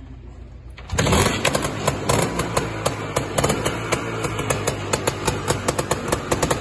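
Beamish Suzuki RL325 trials motorcycle's 325 cc two-stroke single fires up on the kickstart about a second in, then keeps running with a rapid, uneven popping beat.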